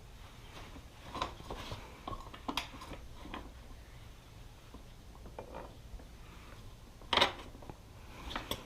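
Scattered light clicks and knocks of metal parts and tools being handled during a motorcycle rear wheel install, with one louder knock about seven seconds in.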